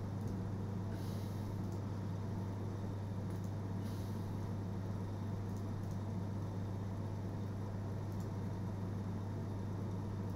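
Steady low hum over background hiss, with a few faint, scattered clicks of a computer mouse as spreadsheet rows are selected and menus opened.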